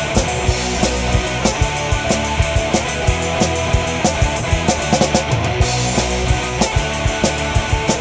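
Rock music with a fast, steady drum beat.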